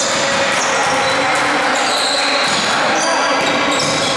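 Basketball game in a gym hall: the ball bouncing on the court floor and sneakers squeaking in many short high squeaks, with players' voices echoing in the hall.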